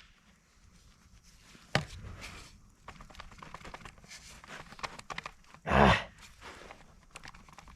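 Hand tools and engine parts being handled during a teardown: scattered light clicks and clinks, a sharp knock about two seconds in, and a brief louder burst of about half a second near six seconds.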